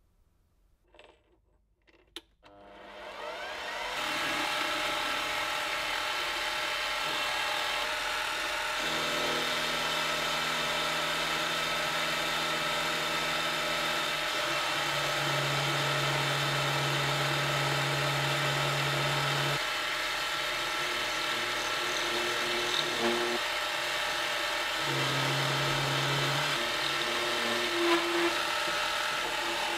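Metal lathe spinning up about two seconds in and running steadily while a carbide insert turns down a round metal bar, a whine made of many steady tones whose lower notes shift a few times as the cut changes. A couple of light clicks of a metal part being handled come before it starts.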